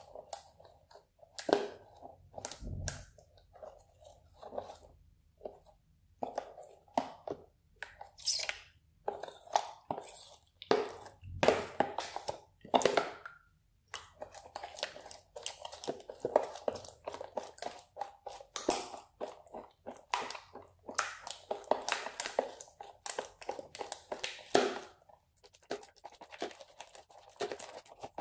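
Green glue slime being stirred with a small spoon in a plastic tub: irregular wet squelches and sticky pops, one after another. The mixture is thickening into clumps as it activates.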